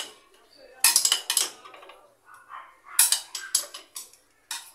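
Metal hand tools clinking and clanking against each other and against metal parts, in several quick clusters of sharp strikes, while a motorcycle rear wheel is being taken apart.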